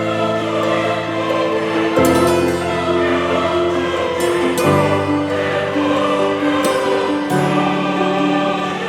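Background music of slow, held chords that change about every two to three seconds.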